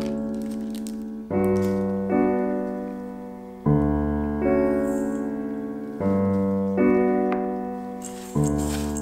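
Background music: piano playing slow held chords, a new chord struck every second or two and left to fade.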